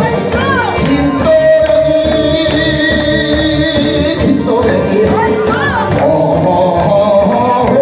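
A man singing a Korean trot song into a microphone over amplified backing music with a steady beat.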